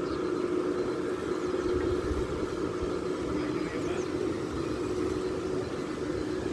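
Radio-controlled model truck's electric drive running with a steady, even hum at one pitch, over a low rumble.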